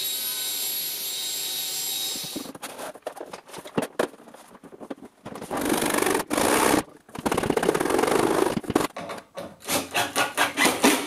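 A steady machine noise for about two seconds that cuts off, then hand work on thin 3 mm MDF: knocks and scraping, a long stretch of rubbing, rasping strokes, and a run of quick short strokes near the end.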